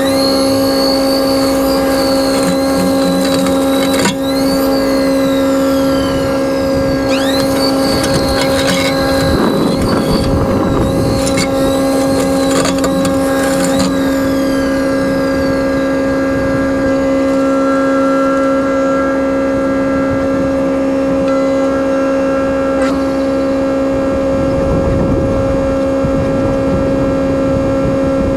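Takeuchi TB240 compact excavator running a RUT Mfg 42-inch Brush Eliminator, a hydraulic brush-mulching head, with its rotor spinning at full auxiliary flow. The machine holds a steady, unbroken hum, while a high whine swoops up and down in the first half. Two stretches of rougher, noisier sound come about ten seconds in and again near the end, where the head chews into brush.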